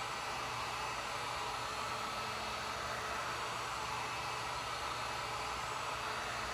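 Heat gun running on its low setting: a steady blowing hiss from its fan with no change in level.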